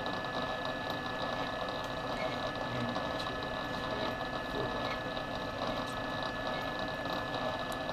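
Vertical milling machine running with its spindle turning: a steady mechanical hum with a thin, steady high whine, while the dividing head is indexed between cuts.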